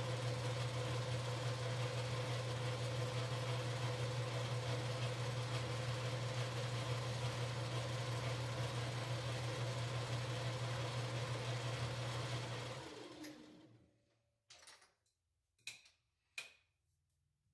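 Logan metal lathe running with a steady motor hum. It is switched off about twelve seconds in and spins down over a second or so. A few light metallic clicks follow near the end.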